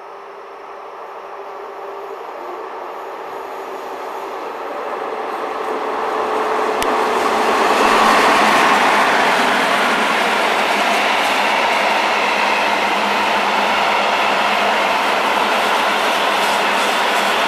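Freight train headed by two red Deutsche Bahn electric locomotives approaching and passing close by. It grows louder until the locomotives go by about eight seconds in, then the covered hopper wagons roll past with a steady, even rushing noise.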